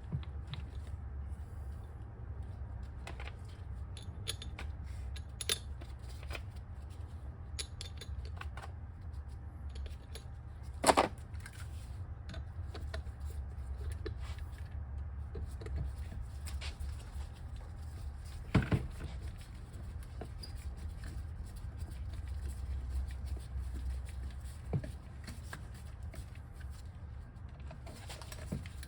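Scattered small clicks and taps of screws and metal motor parts being handled, with two louder sharp knocks, over a steady low hum.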